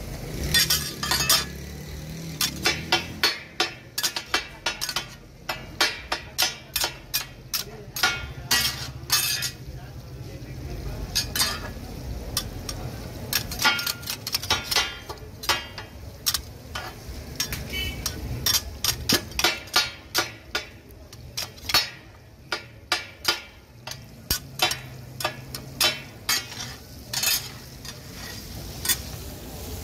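Two steel spatulas chopping and scraping chicken pieces on a large flat iron tawa, giving fast runs of sharp metal clacks in bursts, over the sizzle of frying.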